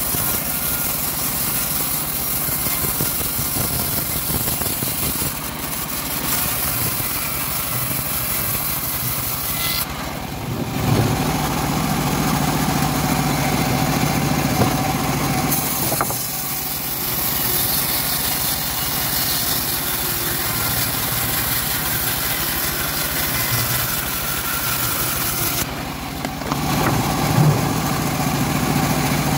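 Homemade bandsaw mill running as its blade rips lengthwise through an old teak beam. It is a steady machine noise that changes tone about ten seconds in and again near the end as the cut goes on.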